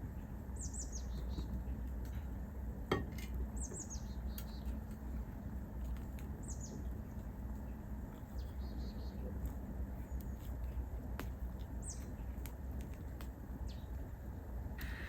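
Birds chirping: short high falling calls every few seconds, over a steady low rumble of outdoor ambience. One sharp click about three seconds in.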